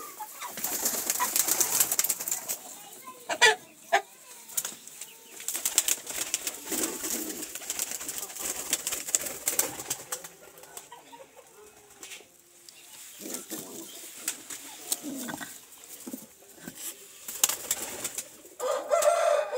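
Domestic pigeons in a loft: wings flapping in a noisy flurry for the first few seconds, then quieter shuffling and low pigeon cooing, with a louder burst near the end.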